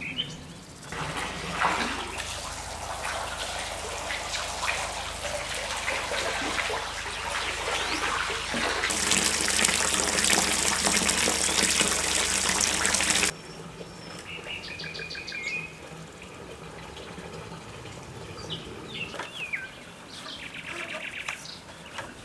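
Solar-powered well pump running with a steady hum while water rushes out of its outlet. The rush gets louder about nine seconds in and cuts off sharply about four seconds later. Birds chirp in the quieter stretch afterwards.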